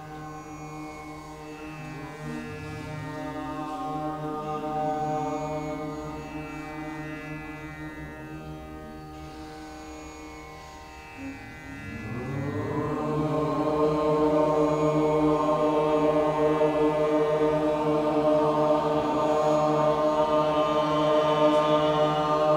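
Kirtan: a man chanting a mantra over the sustained, droning chords of a harmonium. About halfway through, his voice glides up and the music becomes louder and fuller.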